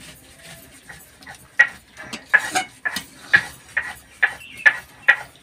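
Metal spatula stirring thick tamarind pickle in a wok, scraping and knocking against the pan about twice a second. The stirring starts about a second and a half in.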